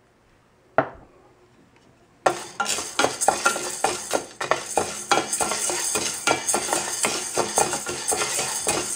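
Dry chana dal (split chickpeas) being stirred in a stainless steel pan with a spoon while it dry-roasts, a dense, irregular rattling and scraping of the dal and spoon against the pan. A single knock comes before it, and the stirring starts about two seconds in.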